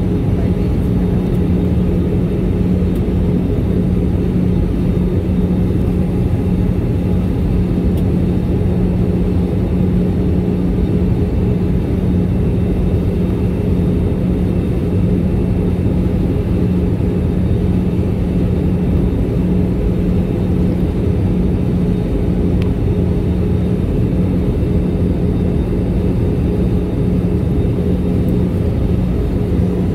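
Steady in-flight noise inside an Airbus A320 cabin: engines and rushing air, with a steady low hum running through it.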